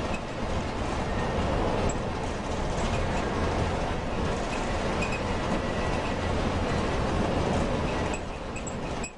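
Steady rumble and running noise of a moving vehicle, with a few faint high clinks.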